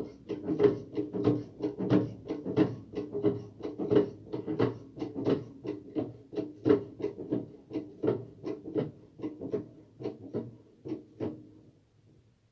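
Hand-lever hydraulic pressure test pump being worked in a steady rhythm of clacking strokes, about three a second, stopping about eleven seconds in. It is pumping water into the plumbing lines to pressure-test them for leaks.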